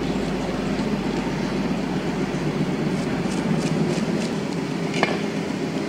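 A heavy knife cutting into a large giant trevally on a tiled counter, giving a few short clicks and knocks, the sharpest about five seconds in. Under it runs a steady low rumbling background noise.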